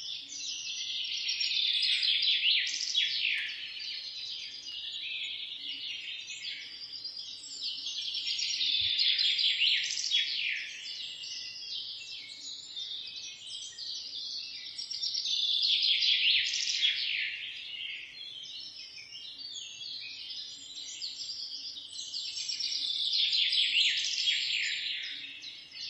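Many small birds chirping and twittering in a dense chorus of quick, high calls, swelling louder and fading back about every seven seconds.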